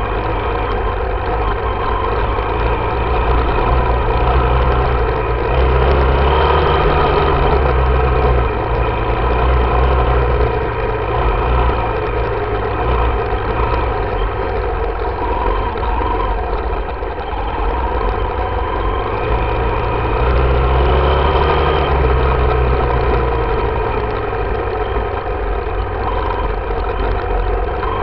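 Yamaha YZ dirt bike engine running while the bike is ridden, rising and falling with the throttle, louder for a few seconds about five seconds in and again about twenty seconds in.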